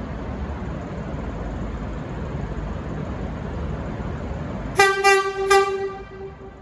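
Low rumble of a V/Line VLocity diesel multiple unit on the move. Near the end its low-note horn gives three quick toots, the last held a little longer before it fades.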